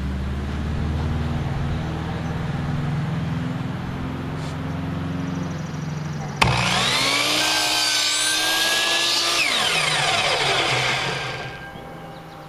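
Compound miter saw switched on with a click about six seconds in. Its motor and blade whine up to speed, run for about three seconds with no wood being cut, then wind down in falling pitch as the blade coasts to a stop. Before the start there is a steady low hum.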